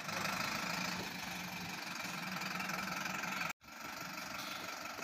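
Truck engine idling steadily, with a brief total dropout about three and a half seconds in.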